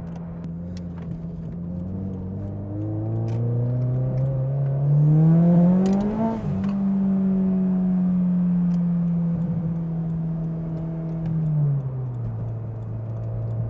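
Turbocharged Scion FR-S flat-four accelerating hard, its engine note climbing for about four seconds to its loudest with a rushing hiss. The automatic transmission then shifts and the engine holds a steady note, and it drops to a lower pitch near the end as the car eases off.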